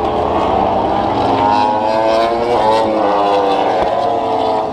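Grand Prix racing motorcycles running at high revs on the circuit, several engine notes overlapping, with the pitch rising sharply twice as bikes accelerate, about two and a half and four seconds in.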